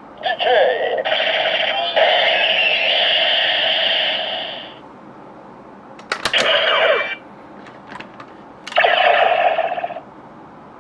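DX Neo Decadriver toy belt playing its electronic sound effects and jingles through its small speaker, in three bursts: a long one at the start, a short one about six seconds in and another about nine seconds in. Sharp plastic clicks of the belt's mechanism come before the second and third bursts.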